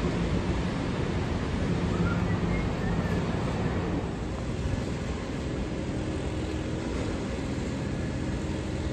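R211A subway train standing at the platform with its doors open, giving off a steady hum and whir from its ventilation and auxiliary equipment.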